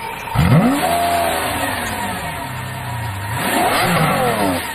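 A car engine revving hard twice: a sharp rise in pitch about half a second in that falls away slowly, then a second rev near the end.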